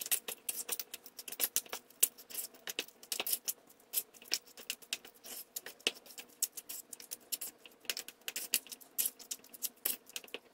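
Metal spoon stirring shredded cheese and roasted red peppers in a stainless steel mixing bowl: quick, irregular scrapes and clicks of the spoon against the bowl.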